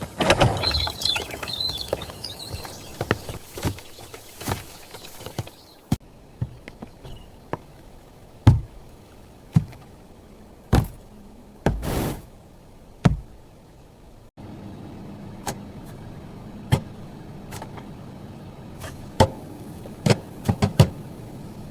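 Household handling sounds: a rustle near the start, then a series of separate light knocks and clicks of things being picked up and set down, one every second or so.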